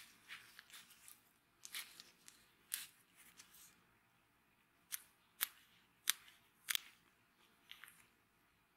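Faint, irregular clicks and scratches of a gloved hand handling a rusty steel cleaver blade, with a few sharper ticks about halfway through.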